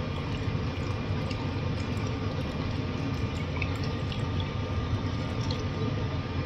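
Beef simmering in a steel pot of dark braising liquid with bay leaves and star anise, bubbling steadily with small scattered pops.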